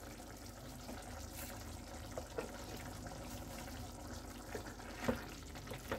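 Chicken keema and peas gravy simmering in a kadai with faint steady bubbling, with a few light clicks as a spatula stirs it.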